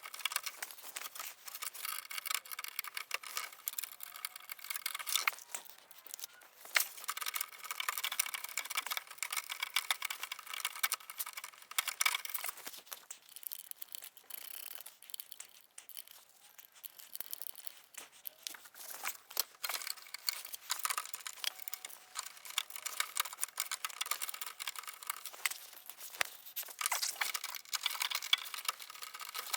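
Irregular small clicks, rattles and scraping of hands working small bolts into a plastic add-on diffuser fin.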